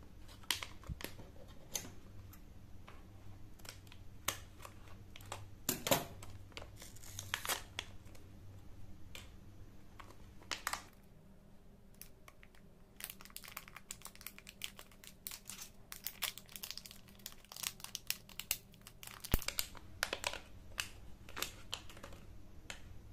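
Anti-static foil bag crinkling as it is handled and opened to take out a stepper motor driver board: a string of sharp crackles, with a short lull about halfway and then a denser run of crackling.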